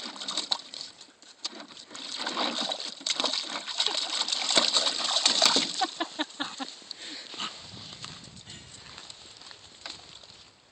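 German shepherd puppies splashing and scrambling in a plastic kiddie pool, water sloshing among quick clicks, loudest in the first six seconds and then dying down.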